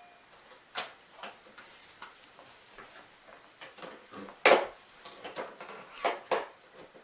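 Plastic parts of a Hoover WindTunnel MAX bagged upright vacuum being handled and put back in place: a series of irregular sharp clicks and knocks, the loudest about four and a half seconds in.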